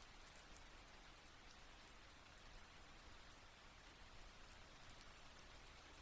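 Light, steady rain without thunder, heard faintly: an even hiss of rainfall with scattered individual drops ticking.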